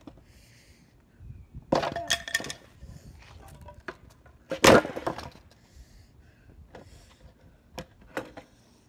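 Wooden dining chairs being smashed on a paved driveway, wood cracking and breaking. There is a crash with a ringing clatter about two seconds in, a louder slam near the middle, and smaller knocks of pieces near the end.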